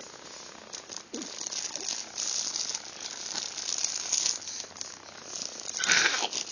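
Rustling and crinkling of a baby's plush toy being handled, in irregular bursts, with a louder rustle about six seconds in.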